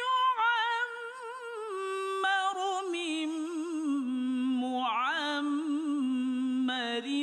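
A male qari reciting the Quran in the melodic tarannum style, unaccompanied: one long, heavily ornamented vocal line that steps down in pitch through the phrase, with a quick swoop down and back up about five seconds in.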